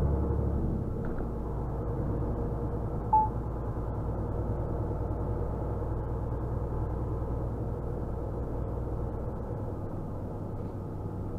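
Lorry engine running steadily, heard from inside the cab while cruising, with road noise; its lowest note drops a little about a second in. A single short beep sounds about three seconds in.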